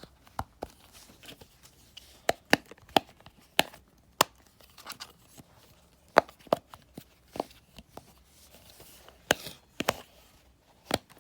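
Irregular sharp clicks and taps from a homemade fidget toy being handled and popped by hand.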